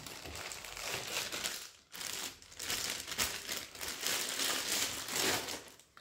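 A thin clear plastic bag crinkling as a satellite speaker is pulled out of it and unwrapped. It comes as a run of uneven rustles with a short break about two seconds in.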